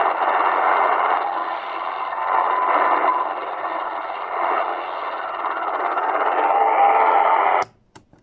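XHDATA D-219 pocket radio's speaker playing the Firedrake jammer on 9970 kHz shortwave: a dense, harsh wash of distorted jamming signal. It cuts off suddenly near the end, followed by a couple of clicks as the radio is switched off.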